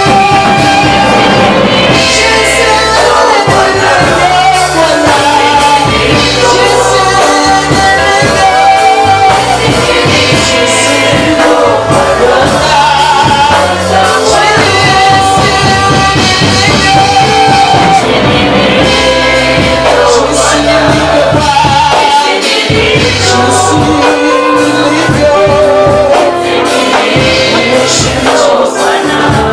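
Live worship music: voices singing a worship song over instrumental accompaniment with a bass line, loud and continuous.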